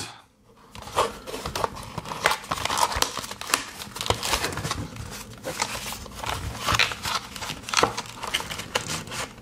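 Cardboard retail box being handled and opened: its white inner tray slides out of the printed sleeve with a steady run of crinkling, rustling and small clicking of paperboard and plastic.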